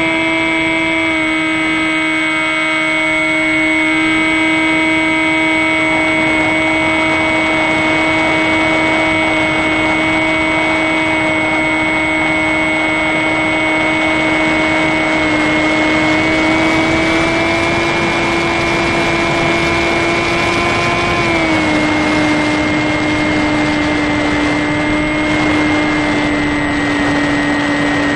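Electric motor and propeller of a HobbyKing Sky Eye RC plane in cruising flight, heard from on board: a steady whine with a rush of air behind it. The pitch rises slightly about halfway through, then drops back about three quarters of the way in.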